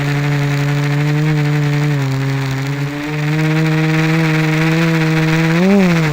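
GAUI 330X quadcopter's electric motors and propellers humming in flight, holding a steady pitch with small shifts, then rising briefly and dropping back near the end.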